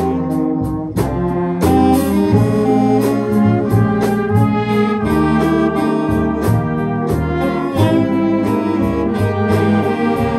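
Jazz big band playing, its trumpets, trombones and saxophones sounding chords together over piano, electric guitar and upright bass, with a steady beat.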